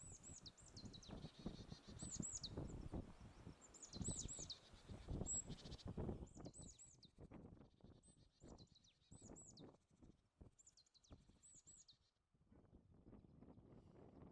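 A small bird's high, thin notes, each sliding downward, given in quick groups of two or three repeated every second or so and stopping about twelve seconds in. Irregular low rumbling runs underneath and is strongest in the first half.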